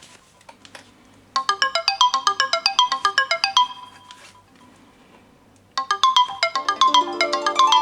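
Mobile phone ringtone: a fast run of bright plucked notes played in short phrases, with a pause of about two seconds between them. Near the end a second tune with held lower notes comes in over it.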